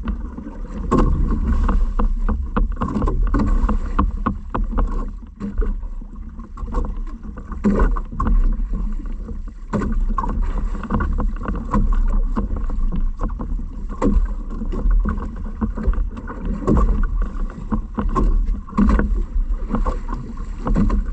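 Water splashing and knocking against a small fishing boat, with irregular knocks throughout and wind rumbling on the microphone.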